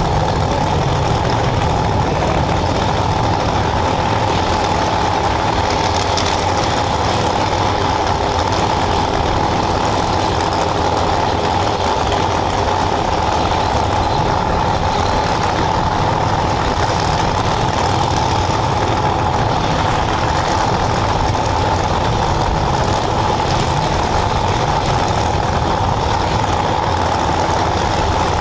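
Drag racing cars idling at the starting line: a steady engine rumble with no revving.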